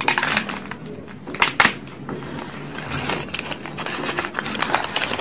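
Paper wrapping of a takeaway nasi padang parcel being unfolded by hand: crinkling and rustling paper, with two sharp, loud crackles about a second and a half in.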